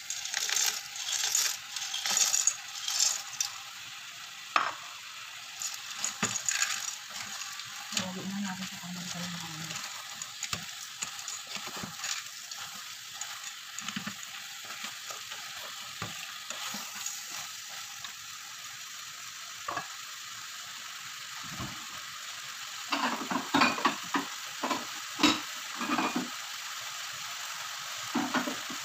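Dry penne macaroni tipped into a saucepan of frying vegetables, rattling in over the first few seconds, then a steady sizzle with a wooden spoon stirring and scraping in the pan. A run of louder knocks and scrapes comes near the end.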